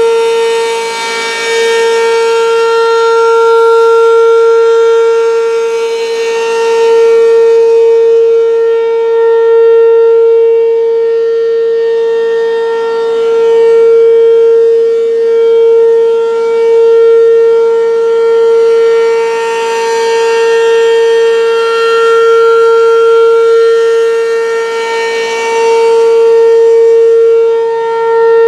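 American Signal RM-127 rotating outdoor warning siren sounding a steady tone at full speed during a test. The pitch holds level while the volume swells and fades every several seconds as the rotating head sweeps past.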